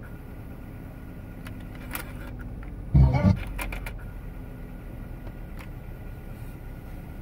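Car stereo cassette deck rewinding a tape: a steady low whir from the tape mechanism, with a small click about two seconds in and a short, loud low thump about three seconds in.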